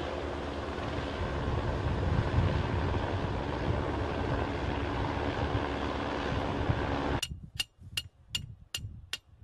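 Wind buffeting the microphone over surf noise. About seven seconds in it cuts off suddenly and sharp metallic ticks follow, about two and a half a second.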